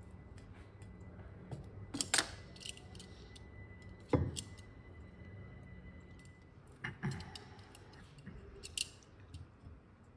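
Masking tape being picked and peeled off a glazed earthenware vase with fingers and a small blade, making scattered small crackles, clicks and scrapes. A louder knock comes about four seconds in.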